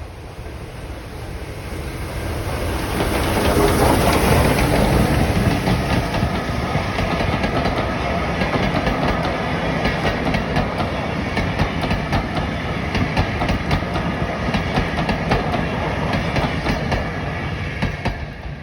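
A steam-hauled train passing: the Bulleid West Country class locomotive 34027 'Taw Valley' goes by, loudest about four seconds in, then its carriages roll past with a rapid clickety-clack of wheels over rail joints, fading near the end.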